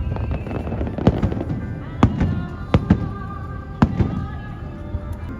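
Aerial fireworks bursting, a sharp bang roughly every second, with music playing underneath.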